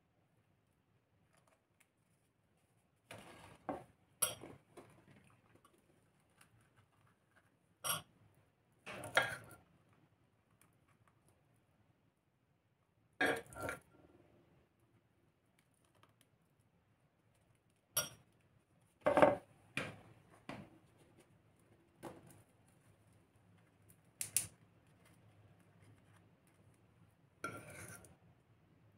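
Metal teaspoon scraping the soft crumb out of baked Yorkshire-pudding-style cakes and clinking against a bowl: short scrapes and clinks every few seconds, with quiet between.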